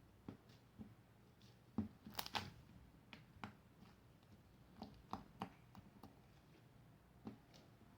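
Faint, scattered clicks, taps and squishes of slime being mixed and handled in a container, with a short louder crackly squish about two seconds in.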